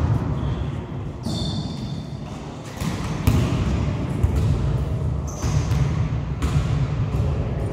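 Indoor volleyball being played: several sharp slaps of the ball being struck, echoing in the large hall, with a few brief high squeaks of shoes on the court floor.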